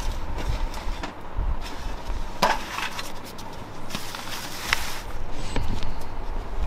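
Plates and metal serving trays being set down on a cloth-covered floor, with a few sharp clinks and knocks of dishes, two of them clearer about two and a half and about four and a half seconds in, over a low rumble.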